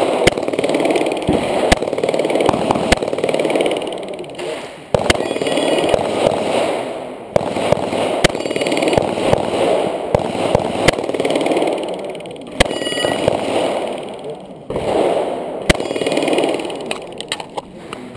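Single pistol shots from a Glock 21 in .45 ACP, about a dozen at irregular one- to two-second gaps with a quick group near the end, over a loud rushing noise that comes and goes in stretches of a few seconds.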